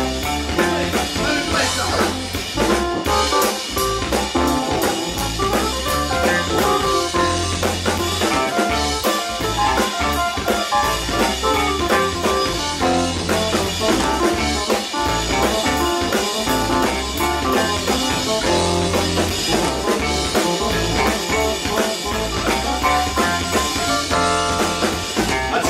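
Live band of keyboards, electric guitar, electric bass and drum kit playing an instrumental break of an up-tempo blues-rock song, with no singing.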